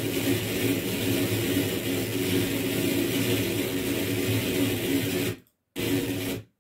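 Dense electronic noise drone from the frakMSP sound-transduction suite: a steady, whirring mass of low tones with hiss on top. It drops out for an instant about five and a half seconds in, comes back, then cuts off abruptly near the end.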